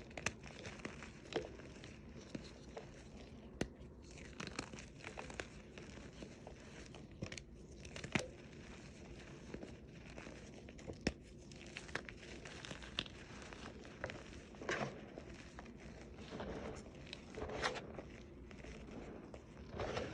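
Green reformed chalk blocks being crushed, crunching and crumbling with irregular sharp snaps and short stretches of gritty crackling.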